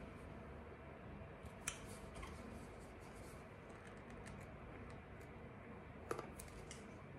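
Faint plastic clicks and taps of a foaming face-wash pump bottle being handled and pressed, with the sharpest click about a second and a half in and a few more near the end.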